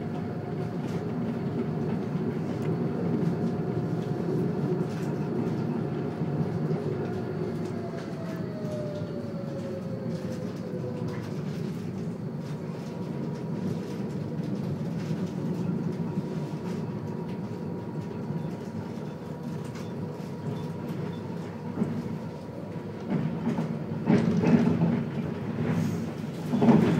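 Zurich city tram heard from inside while riding: a steady low running rumble with an electric motor whine that falls in pitch about eight seconds in as the tram slows, then a steady higher tone. Louder clatter comes in near the end.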